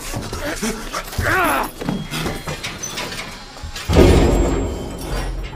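Short strained vocal cries, then a heavy iron door slams shut about four seconds in, with an echoing tail.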